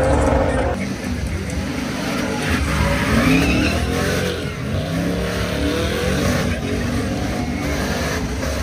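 A vehicle engine revving hard, its pitch rising and falling several times over a steady rush of noise, with spinning tires squealing as in a burnout.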